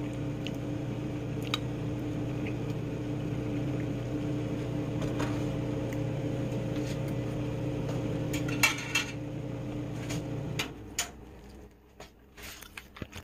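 A steady machine hum from a household appliance with a motor, which stops abruptly about ten and a half seconds in. A few light clinks of a fork against a dish sound over it, the clearest just before the hum stops.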